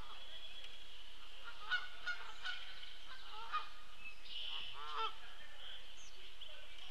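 Geese honking from the pond: a few short separate honks spread over several seconds, with a steady faint high-pitched outdoor background.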